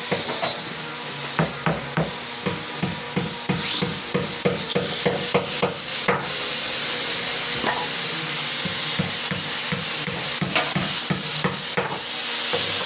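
Hammer striking wood in a steady run of blows, about three a second, for several seconds, then irregular taps, over a steady high hiss.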